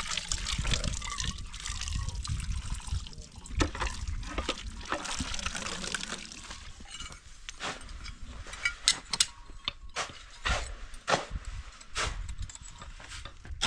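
Water running from a tank's tap into a plastic basin as dishes are rinsed under it. Sharp clicks and knocks come in the second half.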